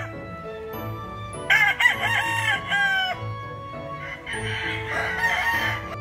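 Gamefowl rooster crowing: one full cock-a-doodle-doo in several bending segments starting about a second and a half in, then a rougher, noisier call near the end. Background music with a steady beat runs underneath.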